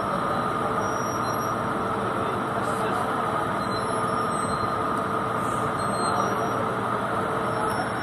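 Steady drone of a cargo ship's machinery, a constant rumble carrying a low hum and a higher steady whine, with no change in level.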